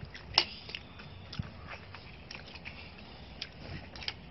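Scattered small clicks and taps of a pin picking snail meat out of its shell over a plate, with one sharper click about half a second in, mixed with chewing.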